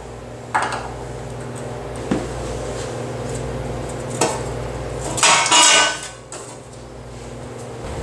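Metal clicks and clinks as a sheet-metal access panel is unscrewed and taken off a potter's wheel frame, with a louder metallic rattle lasting about half a second around five seconds in as the panel comes free. A steady low hum runs underneath.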